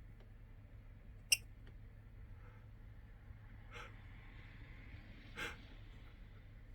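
A lovebird's small sneezes: short, faint puffs of noise about four and five and a half seconds in, with a sharp click about a second in.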